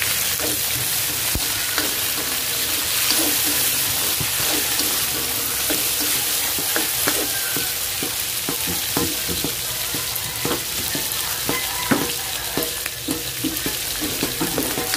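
Shrimp sizzling steadily in hot oil in a pan, being stirred, with many short clicks and scrapes of the utensil against the pan.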